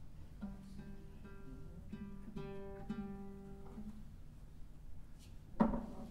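Oud played quietly: a short phrase of several plucked notes that stops a little past the middle. A single sharp knock comes near the end.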